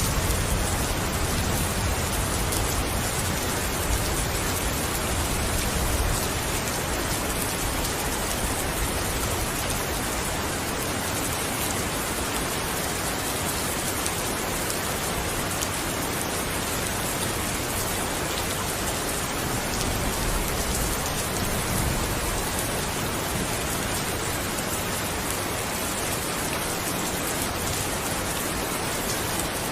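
Steady, dense rainfall hissing on a surface. A low rumble of distant thunder fades over the first few seconds, and a weaker one comes about twenty seconds in.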